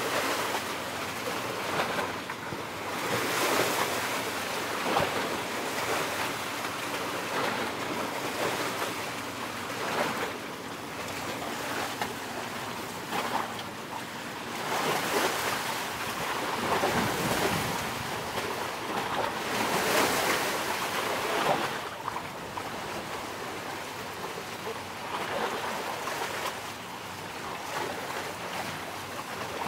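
Sea waves washing in with wind on the microphone, a rushing noise that swells and fades every few seconds.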